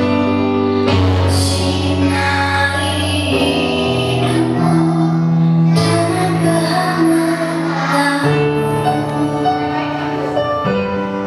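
Music: a slow piece of sustained chords over a steady bass line, the chords changing every second or two.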